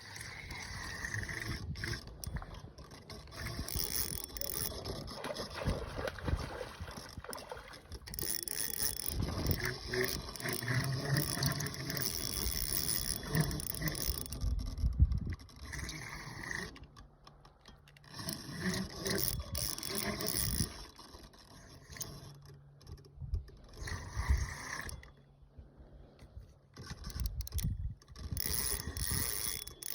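Fishing reel and taut line under the pull of a hooked big brown trout: mechanical reel noise that comes and goes in stretches with short lulls, as the fish takes line and is reeled in.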